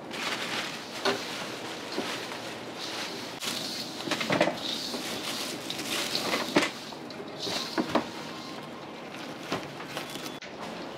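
Hand mixing a coarse, damp seasoning rub of granules, chopped spring onion and chili in a large stainless-steel bowl: gritty scraping and rustling, with irregular knocks of the hand against the metal bowl.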